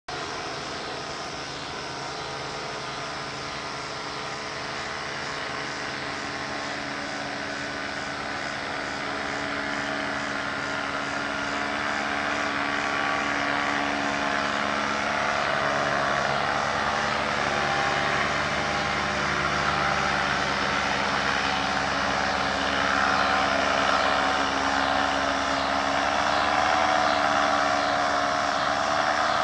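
Paramotor's backpack engine and propeller droning steadily, growing gradually louder as it flies nearer.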